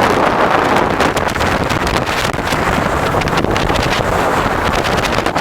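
Jet boat running at speed: a loud, steady rush of engine and water, with wind buffeting the microphone.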